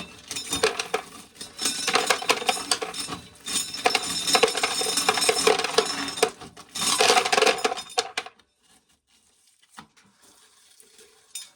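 Dry shelled corn kernels clattering and rattling in several dense bursts of many small clicks, stopping about eight seconds in.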